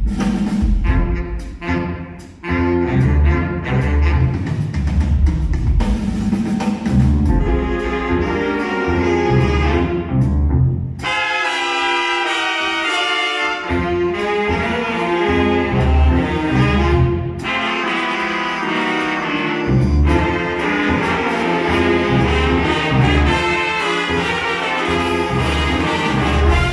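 A school ensemble playing an upbeat piece with a steady beat; a little before halfway the low bass drops out for a couple of seconds, then the beat comes back.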